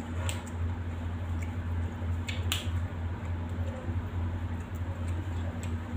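Small sounds of people eating at a table: a few short sharp clicks of dishes, the clearest about two and a half seconds in, over a steady low hum.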